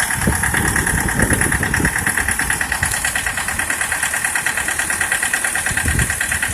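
Mitsubishi L200 engine idling with a steady, even knocking pulse. The owner takes the knock for one cylinder, the second, running worse, and suspects the fuel injectors.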